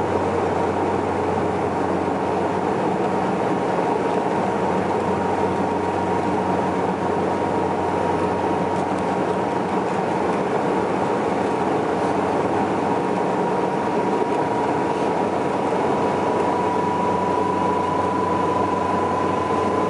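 Steady drone of a Saab 340B's twin turboprop engines and propellers, heard inside the cabin on the landing approach, with a thin whine that rises slightly in pitch near the end.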